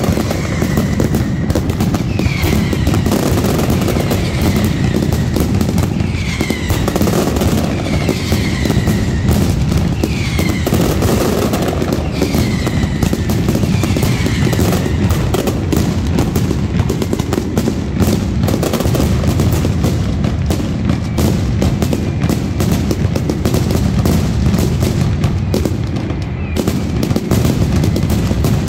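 Mascletà firecrackers going off in a dense, continuous rapid-fire roll of bangs. Over the first half, whistling fireworks add falling whistles about once a second, which fade out after the middle.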